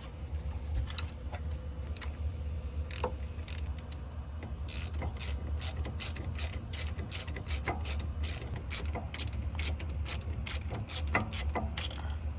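Hand ratchet wrench clicking in quick runs as bolts are turned during reassembly of the rear differential, over a steady low hum.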